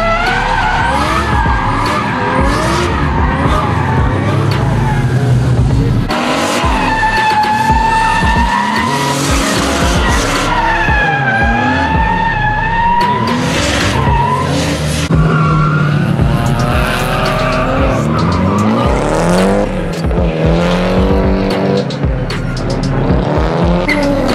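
Drift cars sliding sideways under power: engines revving up and down as the throttle is worked, with tyres squealing and screeching on the asphalt. The sound changes abruptly a couple of times as one car's pass gives way to another.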